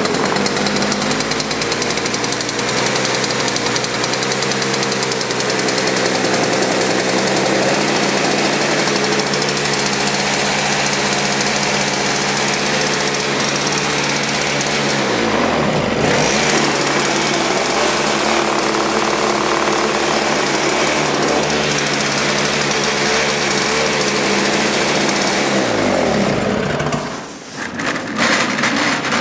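Toro S-620 snowblower's two-stroke engine running fast and steady just after a cold start. About fifteen seconds in it sags briefly and picks back up; near the end it winds down and stops, followed by a few rattles.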